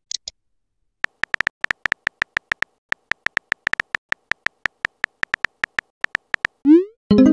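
Simulated phone-keyboard typing clicks from a texting-story app, short and quick at about seven a second as a message is typed out. Near the end comes a brief rising swoosh as the message is sent, and a chime starts just after it.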